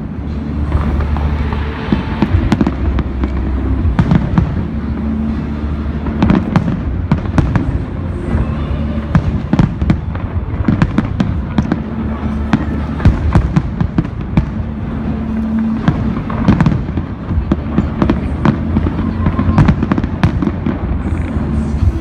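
A fireworks display with shells bursting and crackling in quick, irregular succession, mixed with music playing underneath over loudspeakers.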